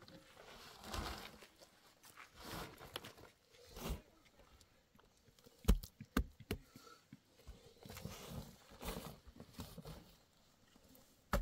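Bare hands scraping and patting loose earth over a stone mound, in repeated short swishes, with a few sharp knocks about halfway through as stones or clods strike each other.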